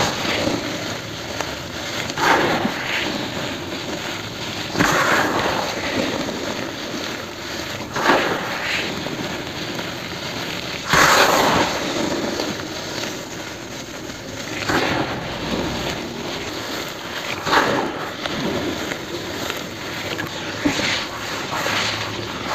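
Dry cement powder crunching and crumbling as gloved hands squeeze and break up clumps of it, in repeated swells every two to three seconds over a steady grainy hiss, the loudest crunch about halfway through.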